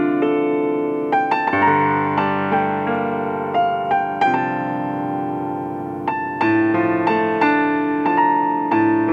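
Roland digital keyboard played solo with a piano sound: slow chords, each one held and ringing on while new notes are struck over it.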